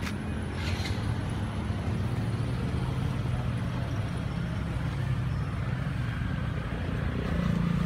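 A motor vehicle's engine running, a continuous low hum whose pitch drifts slowly and swells a little near the end.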